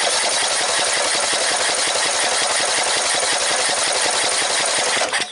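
Briggs & Stratton 14.5 hp lawn tractor engine cranking on its starter with a fast, even pulsing, then stopping abruptly near the end. It is cranking with the fuel line pulled off the carburetor: the pulse fuel pump is delivering no fuel.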